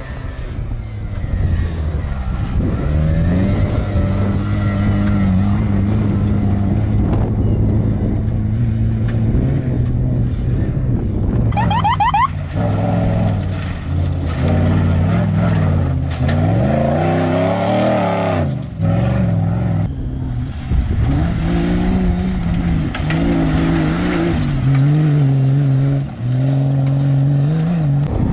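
Off-road race vehicle engines running hard, their pitch rising and falling repeatedly as they rev and drop back, with a brief high rising whine about twelve seconds in.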